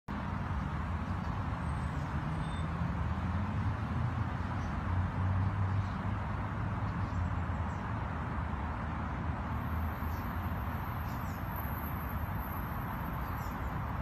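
Steady hum of city traffic, a low rumble without breaks, with a few faint bird chirps and a thin high whine that sets in about two-thirds of the way through.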